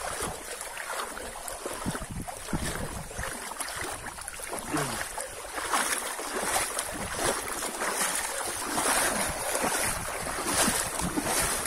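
Sloshing and splashing of legs wading through muddy floodwater, with a dog wading and paddling just ahead; the splashes come unevenly, with no steady rhythm.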